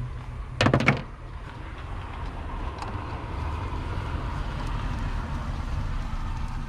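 A quick run of about five sharp clicks about half a second in, over a steady low rumble.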